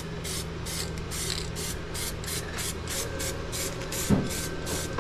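Aerosol spray can hissing in quick, even bursts, about three a second, laying a temporary coat over fresh welds to keep the bare metal from rusting. A single low thud comes about four seconds in.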